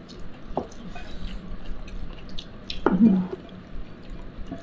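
Close-up eating sounds: small wet clicks and smacks of chewing and of fingers picking through rice and chicken on a plate, with a brief vocal murmur about three seconds in.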